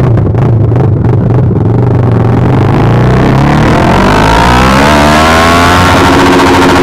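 Kawasaki ER-6n parallel-twin motorcycle engine on a straight pipe, very loud. It runs low and pulsing for about two seconds, then revs up, its pitch climbing steadily and staying high near the end.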